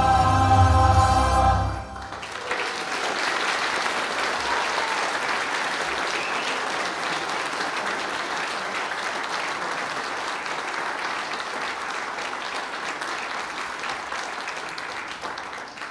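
A choir with accompaniment holds a final chord that cuts off about two seconds in, then the congregation applauds steadily, fading out near the end.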